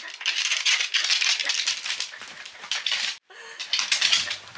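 Dog's claws clicking and skittering rapidly on a wooden floor as a Welsh Corgi runs. The sound cuts out abruptly for a moment about three seconds in.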